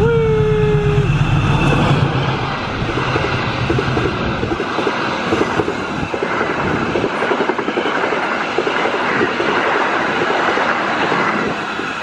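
CC206 diesel-electric locomotive passing close by with a passenger train: a horn blast of about a second at the start, the engine's deep rumble fading after a couple of seconds, then the coaches rolling past with a steady clickety-clack of wheels over the rail joints.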